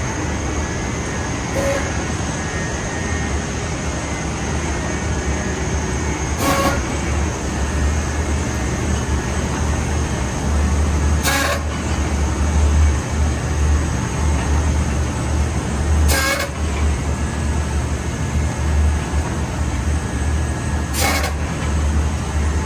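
Rock wool production line machinery running steadily with a low hum, a hiss and a faint high whine, broken by a short sharp clack about every five seconds.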